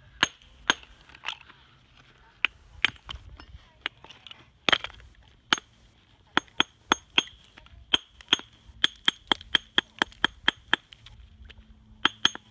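A steel hammer striking a rough block of Japanese natural whetstone, each blow a sharp, short ringing clink. The blows come slowly at first, then quicken to about three a second, with a brief pause before two more near the end. The stone is being dressed: split along its weak bonds by blows whose ring tells the craftsman where the stone is unsound.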